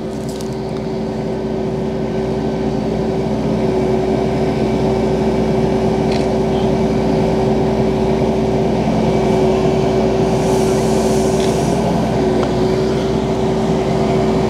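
Tow truck's engine and winch running steadily with a droning hum while the winch cable pulls a sunken pickup truck up the ramp. The hum grows a little louder over the first few seconds, then holds steady.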